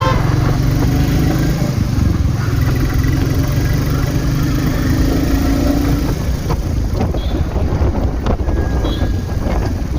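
2023 Royal Enfield Classic 350's single-cylinder engine running through its stock exhaust with a steady low thump. About six seconds in, the even engine note breaks up into a rougher, noisier sound with wind rushing over the microphone.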